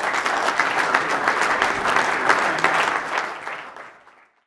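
Audience applauding, steady at first, then fading out to nothing near the end.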